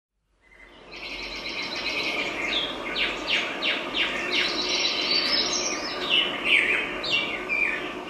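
A dense chorus of birds chirping and calling, many quick downward-sliding chirps overlapping, fading in over the first second.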